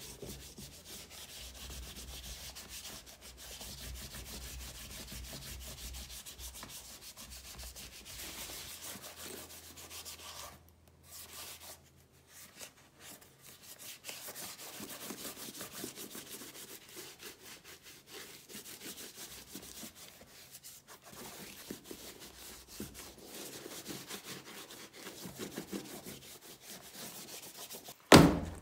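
Continuous hand rubbing over a leather boot, a rough scratchy hiss of strokes that breaks off briefly a few times. A low hum underlies the first nine seconds or so, and a single sharp knock, the loudest sound, comes just before the end.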